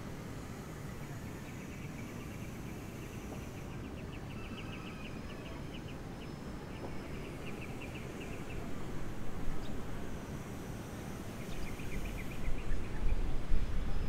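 Outdoor background noise with a steady low rumble, crossed twice by spells of rapid high chirping; low rumbling swells up twice in the second half.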